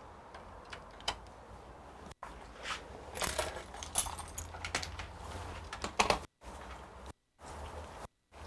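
Light metallic clicks, clinks and rattles of hands handling computer hardware and cables, busiest in the middle. The sound cuts out to dead silence three times briefly near the end.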